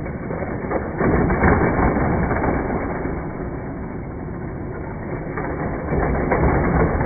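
Battery-powered booster of a Hot Wheels loop track whirring steadily as die-cast toy cars run around the plastic loops. It grows louder about a second in and again near the end.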